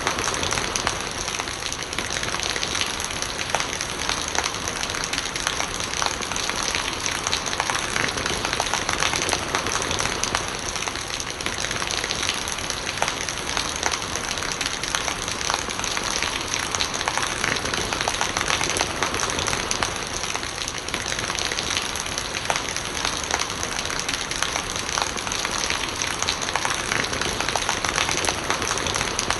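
Steady rain, a dense patter of many drops, with rainwater gurgling as it runs.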